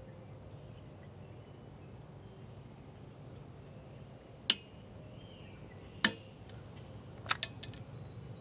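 3D-printed carbon-fibre PETG scarf joint cracking as it is twisted to failure with a torque wrench: two sharp snaps about a second and a half apart, then a few fainter ticks.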